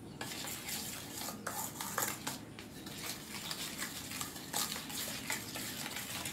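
A metal utensil beating eggs and sugar by hand in a stainless steel bowl: a quick run of clinks and scrapes against the side of the bowl.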